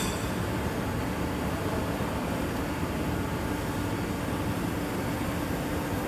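Steady mechanical drone of running machinery, with a faint steady hum in it and a brief click right at the start.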